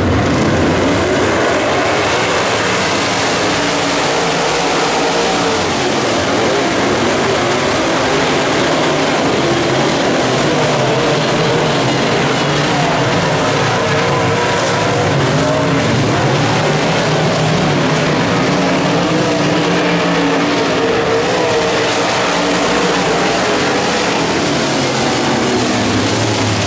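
A pack of dirt late model race cars racing, their V8 engines running hard together in a loud, continuous din, with engine pitches rising and falling as the drivers get off and back on the throttle.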